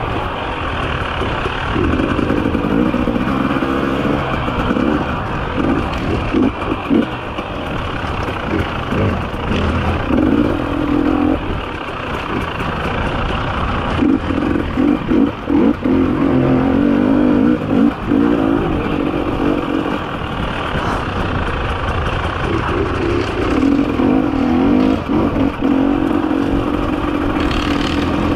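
On-board sound of a 300 cc two-stroke enduro motorcycle engine being ridden slowly, the throttle opening and closing again and again so the engine note keeps rising and falling.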